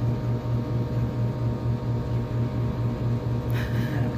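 Omron automatic blood pressure monitor's pump motor running as it inflates the arm cuff: a steady hum that pulses rapidly and evenly. A brief rustle near the end.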